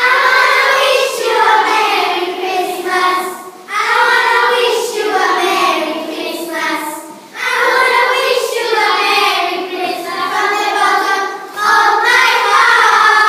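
A group of children singing together, in four phrases of a few seconds each with short breaks between them.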